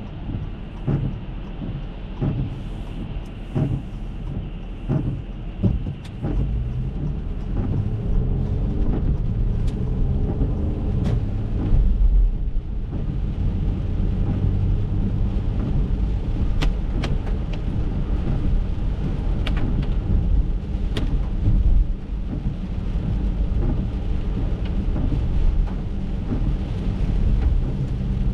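Rain ticking and pattering on the windshield and roof of an Acura MDX, with the wipers sweeping, heard from inside the cabin. About six seconds in, a low rumble of tyres on the wet road sets in and holds steady as the car drives on.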